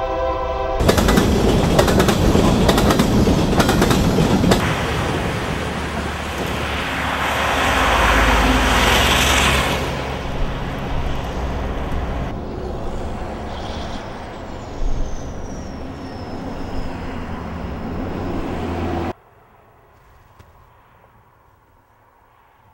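A train horn sounds and stops just under a second in, and a train then passes close by with a loud rush and rattling wheel clatter for about nine seconds. A lower steady rushing noise carries on after it, then cuts off abruptly a few seconds before the end, leaving faint quiet.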